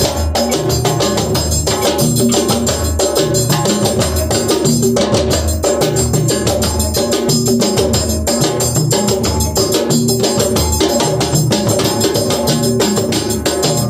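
Djembes and tall standing drums played together in a steady, fast interlocking rhythm, with dense hand strokes over regular low booming pulses and a few held tones underneath.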